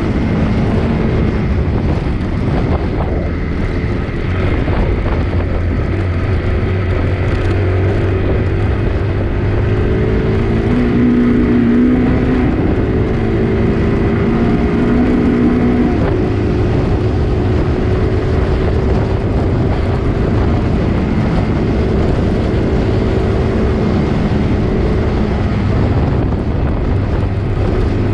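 A vehicle engine running steadily while travelling at speed, its pitch shifting a little, with wind rushing over the microphone.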